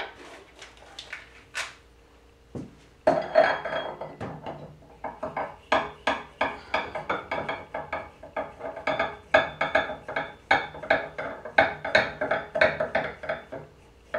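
Z-axis lead screw being turned by hand into its nut, giving a rapid run of small metallic clicks with a ringing tone, about four or five a second, starting about three seconds in.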